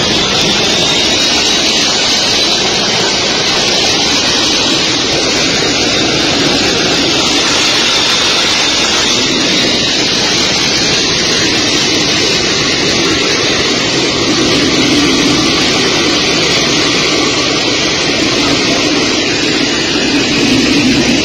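Wing-mounted turbofan jet engines of a US military transport plane running loud and steady as it moves along the runway. A faint high whine rises slightly near the start, then holds over a dense rush of engine noise.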